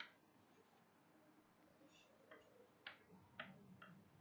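Chalk tapping and clicking against a blackboard as words are written: a sharp click at the start, then a quick run of four or five taps in the second half.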